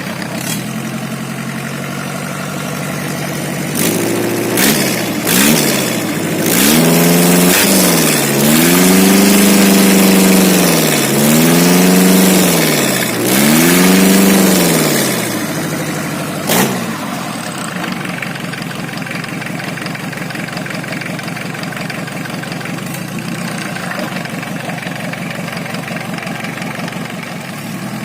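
Truck engine running with an abnormal clattering (kemeletek) noise, typical of an engine run with some of its components not fitted. It idles, is blipped a few times about four seconds in, then revved up and down three times before settling back to idle, with a sharp click as the revs drop about 16 seconds in.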